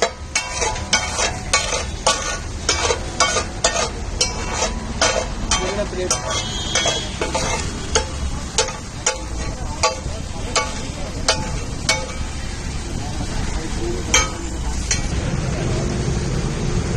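Metal spatula clacking and scraping on a large flat griddle as pav bhaji is stirred, mashed and scooped up, with the bhaji sizzling. The strikes come about two or three a second at first, then thin out, with one louder clack near the end.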